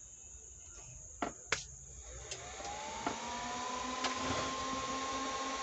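Soundstandard CA20 power amplifier powering up: two sharp clicks, then its cooling fan spins up with a rising whine that levels off, joined by a steady low hum and air noise about three seconds in, with another click or two.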